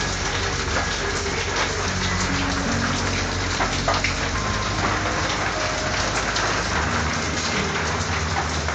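Steady rain falling on a corrugated tin roof, a dense even hiss with individual drop ticks and a few sharper drop hits about four seconds in.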